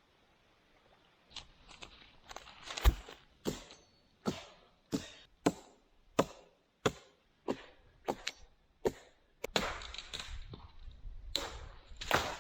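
Dry wood being chopped with a blade: a steady series of sharp blows, about one every two-thirds of a second, with a stretch of rustling between blows near the end.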